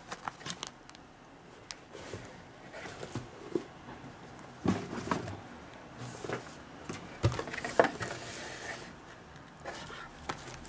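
Handling noise from a small cardboard accessory box being opened and its plastic-bagged cables moved about: scattered soft rustles and taps of cardboard and plastic, with a few sharper knocks from about halfway through.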